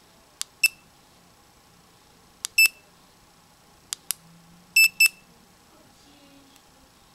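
Button presses on a Lucky FF518 wrist-watch fish finder: sharp clicks, each answered by a short high beep, spread over about five seconds, with two beeps close together a little before the middle of the second half.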